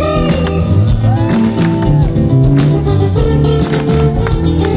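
Live band music: acoustic guitar and electric bass playing a song over a steady, even beat.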